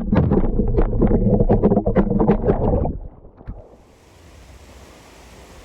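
Wind buffeting the microphone with a loud, irregular rumble for about three seconds, then cutting off to a faint, steady rush of river water.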